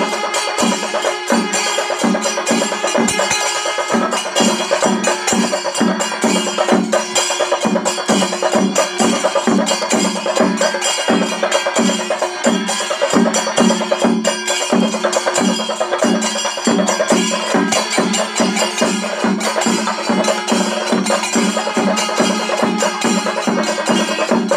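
Percussion music with a steady beat of drum strokes, about two a second, over a dense, continuous ringing backing.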